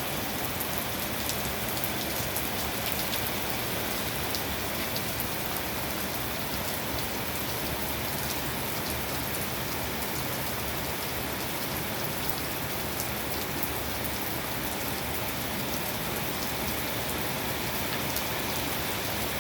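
Steady rain falling, with the patter of many individual drops ticking on surfaces.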